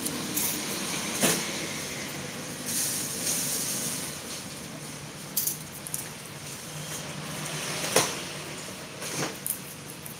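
Purple papery bulbs being picked from a plastic basket and set into a stainless-steel wire rack: light rustling of dry skins with about four sharp clicks as bulbs knock against the wire and each other, over a steady hiss.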